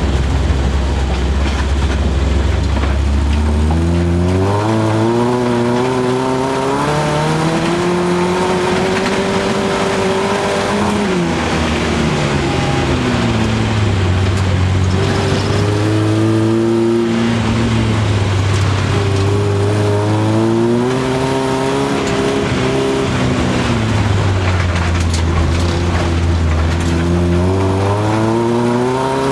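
Folkrace car's engine heard from inside the cabin while racing on a dirt track. It runs low and steady at first, then climbs in pitch four times, dropping back between climbs, over constant road noise.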